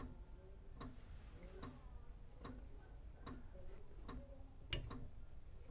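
Regular ticking, a little faster than once a second, with one sharper click about 4.7 seconds in.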